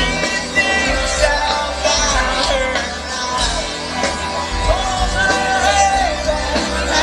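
Live rock band playing, recorded from far back in an open-air amphitheatre crowd: a steady drumbeat and bass under guitars and a wavering melodic lead line.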